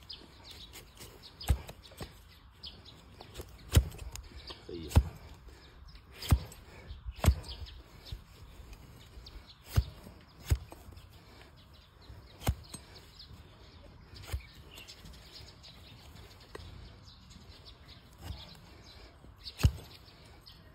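Large flat hoof-paring blade cutting through a donkey's hoof and knocking onto the wooden trimming bench, about ten sharp strokes at uneven intervals. Birds chirp faintly in the background.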